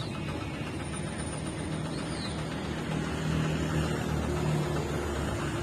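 Street traffic: motor vehicle engines running on a town road, a steady drone that grows a little louder about three seconds in.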